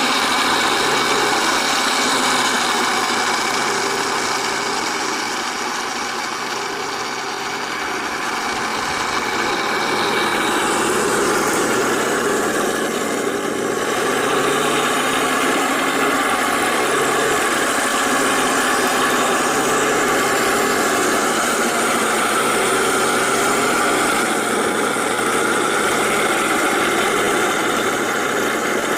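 Simulated engine sound from the sound unit of a 1/16 MATO all-metal Tiger I RC tank, running steadily. It dips slightly in loudness about six seconds in and changes in tone around the middle.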